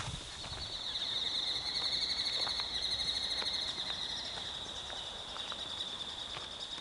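Insects trilling steadily in a continuous high-pitched, finely pulsed chorus, swelling a little about a second in and easing slightly after the middle.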